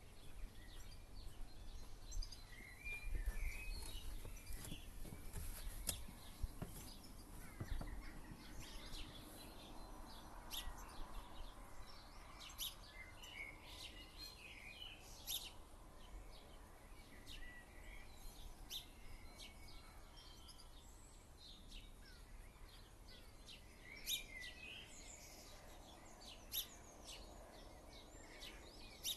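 Quiet garden ambience: small birds chirping on and off over a faint steady background, with a low rumble in the first several seconds.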